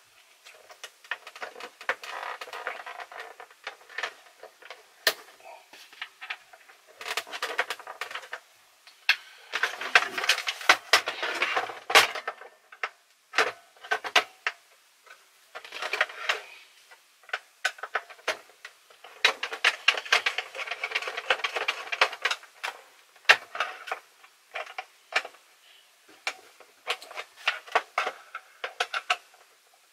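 Small screwdriver working the screws out of the plastic case of a Philips N2234 cassette recorder, with the housing handled and turned over on a wooden bench: stretches of scraping and scratching broken by scattered sharp clicks and knocks of plastic.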